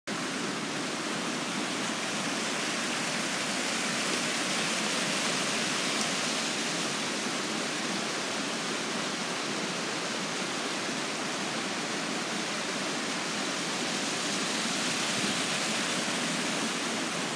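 A brook rushing steadily, a constant even wash of flowing water.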